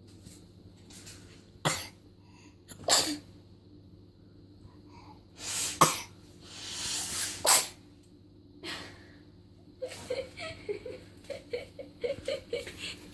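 A baby sneezing several times, each time a breathy intake that builds and ends in a sharp burst, the two loudest about six and seven and a half seconds in. The sneezing comes from a flu with a runny nose.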